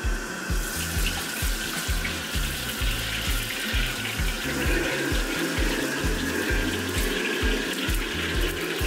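Steady rushing hiss of a restaurant wok station, coming in about half a second in: a high-power gas wok burner with oil being heated in the wok, and the tap at the range running into its trough. Background music with a steady bass beat runs underneath.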